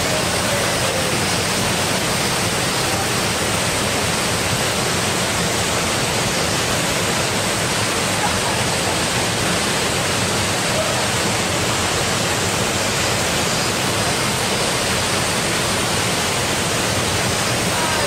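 Small waterfall, the Kani-daru falls, pouring into its plunge pool: a loud, steady rush of falling water that does not change.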